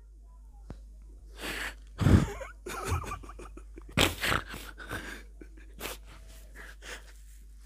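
Short sniffs and sharp breaths close to the microphone, about a dozen coming irregularly over several seconds, over a low steady hum.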